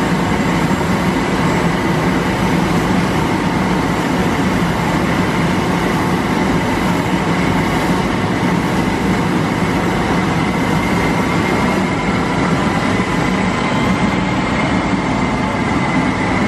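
Loud, steady machinery noise with a constant high whine and a low hum underneath, unchanging throughout: the running of ground equipment or a vehicle on an airliner apron.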